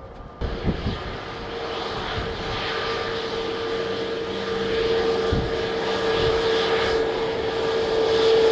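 Jet airliner's engines, a steady whine over a roar that grows gradually louder as the aircraft comes closer, loudest near the end. Low buffeting from wind on the microphone runs underneath.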